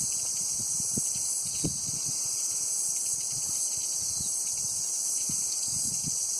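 Steady, high-pitched chorus of insects shrilling along a bush walking track, with soft low thuds scattered underneath.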